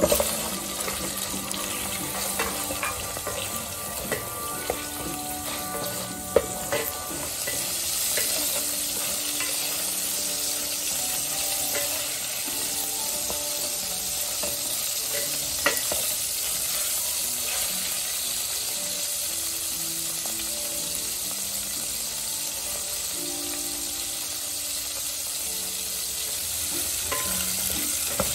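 Pieces of fish bone and fish head frying in hot oil with ginger in a stainless steel pot: a steady sizzle that flares as the fish goes in, with a wooden spatula stirring and now and then knocking against the pot.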